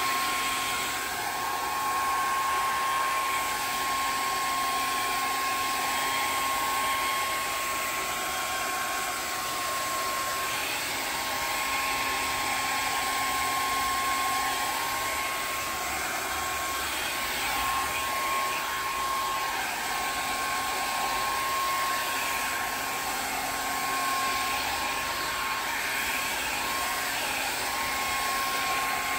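Hand-held hair dryer running steadily on its high setting: a rush of air with a steady high whine from the motor.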